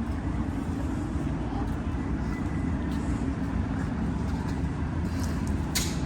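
Steady low outdoor rumble of background noise, with one brief sharp click near the end.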